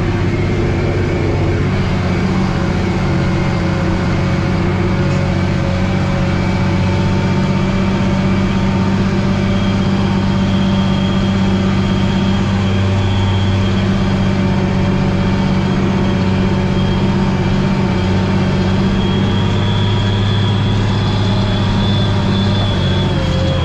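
Tractor diesel engine running steadily under load while pulling a harrow, heard from inside the cab, with a thin high whine over it.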